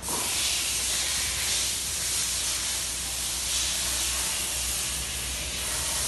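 A loud, steady hiss that cuts in suddenly and keeps going without a break.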